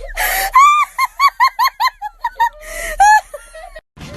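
A bird giving a rapid run of short, arched squawks, about five a second, with a harsh noisy squawk before and after the run.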